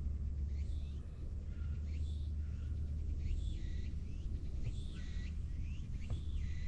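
Small birds chirping, short calls that rise and fall in pitch, about two a second, over a steady low rumble.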